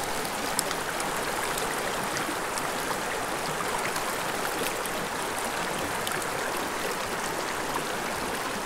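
Small mountain creek running steadily over rocks, an even wash of flowing water, with a few faint clicks.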